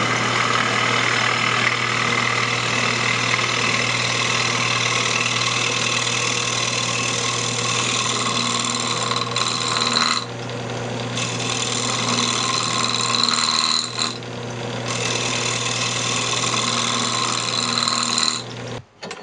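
Wood lathe running with a turning tool cutting the spinning square cherry blank: a steady motor hum under a loud cutting hiss. The cut lets up twice for about a second, and the sound stops just before the end.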